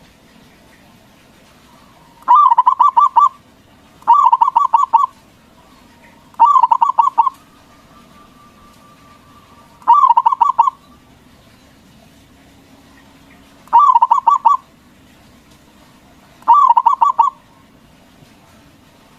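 Zebra dove (perkutut) singing: six phrases of fast, stuttering cooing notes, each about a second long, spaced a few seconds apart.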